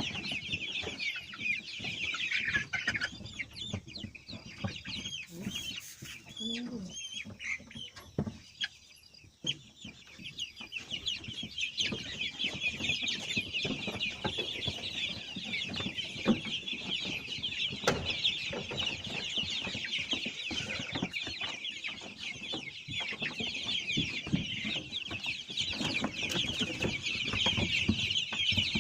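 A flock of chickens calling together: a dense, continuous chorus of many overlapping high peeps and clucks, thinning briefly about a third of the way in and then growing fuller.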